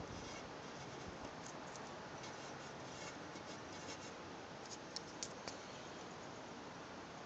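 Fountain pen nib scratching on paper as a date is written in numbers, over a steady hiss. A few light clicks follow about five seconds in.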